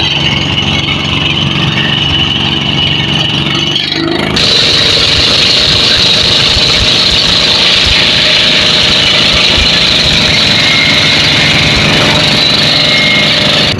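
Fishing boat's engine running steadily; about four seconds in it abruptly becomes louder and rougher.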